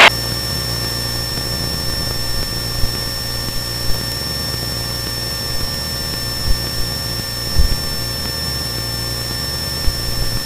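Cessna 172's four-cylinder piston engine droning steadily in cruise, heard as a muted low hum under a thin steady high whine, with a few short soft thumps.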